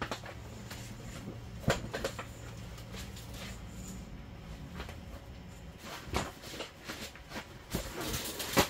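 Scattered knocks, clicks and rustles of a person handling gear by hand, with two sharp knocks about two seconds in and the loudest one near the end.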